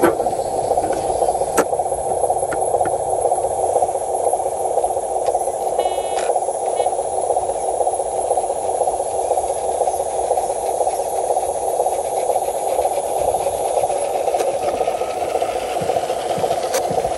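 Scale RC dump truck's electric motor and gearbox running with a steady grinding whirr, with a few sharp clicks and rattles.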